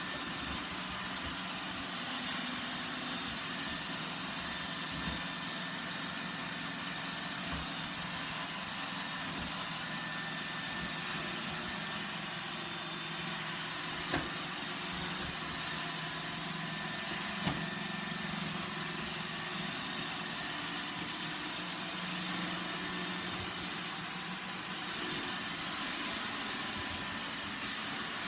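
A Roomba 960 robot vacuum running, with a steady motor hum and whir. Two short knocks come about halfway through, a few seconds apart.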